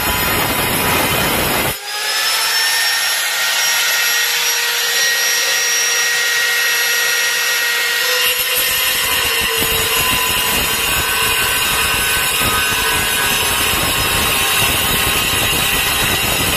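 Handheld angle grinder with a diamond disc cutting through porcelain tile: a loud, steady high whine over gritty grinding noise. There is a brief dip about two seconds in, and the lower rumble is absent until about eight seconds in.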